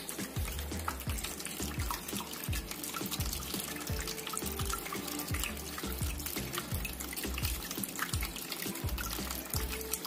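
Water trickling from several small spouts of a tabletop fountain and splashing into its basin, with a patter of drips, over background music.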